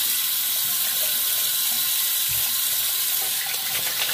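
Cold water running steadily from a bathroom tap into the sink, splashing, as the face is rinsed between shaving passes.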